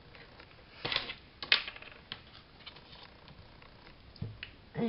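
Glue stick being handled on a craft desk: two sharp plastic clicks about a second in, as the cap comes off and is set down on the cutting mat, then a few faint ticks.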